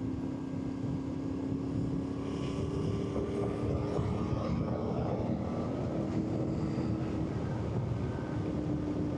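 Yamaha Tenere 700's parallel-twin engine running steadily while riding, over wind rush; its note steps up slightly about six seconds in.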